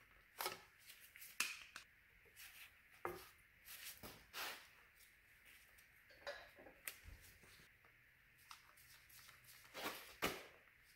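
Faint, scattered clicks and rustles of gloved hands handling rubber hoses and fittings on an engine block, with a few sharper clicks, the loudest near the end.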